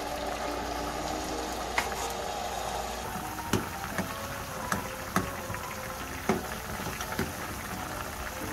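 Soy-sauce braising liquid bubbling and sizzling around potato chunks in a pan as it reduces. From about three seconds in, a wooden spoon stirs the potatoes, knocking against the pan several times at irregular intervals.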